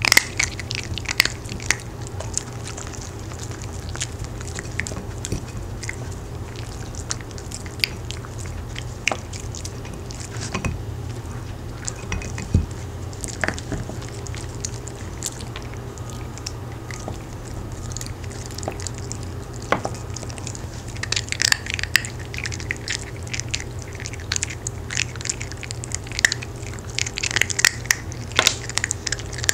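Small dogs crunching and chewing hard homemade sweet potato dog cookies: irregular crunches and clicks of teeth, coming thicker and faster in the second half.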